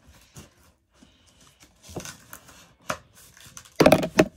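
Cardboard box and packaging being pulled at and handled: scattered rustles and knocks, then a loud, rough burst of noise lasting about half a second near the end.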